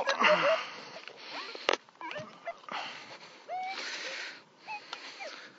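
A hand digging tool scraping and digging through loose, stony ploughed soil in a hole, with one sharp knock a little under two seconds in. A few short chirping tones sound between the scrapes.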